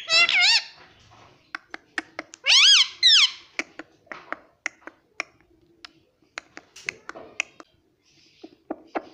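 Pet parrot giving two loud, wavering high calls, one at the start and one about two and a half seconds in, among many sharp clicks.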